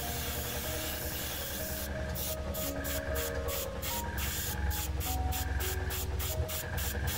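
Airbrush spraying paint: a steady hiss of air that, from about two seconds in, is broken into short rapid bursts about three times a second, over a low hum, with slow background music.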